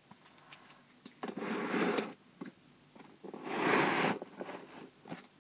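Two short rustling scrapes, the second louder, with a few small clicks between, from trading cards being handled.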